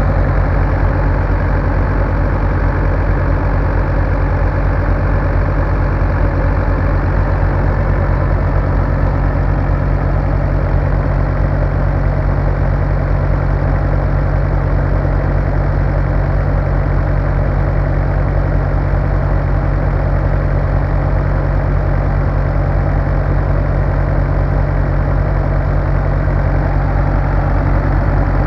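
1967 Zetor tractor's diesel engine idling steadily.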